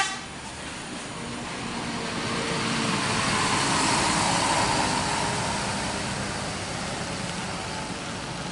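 Mercedes-Benz coach driving past close by, its diesel engine and tyres swelling to a peak about four seconds in, then fading as it pulls away.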